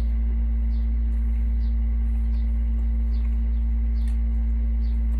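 A steady low hum, with faint soft ticks now and then.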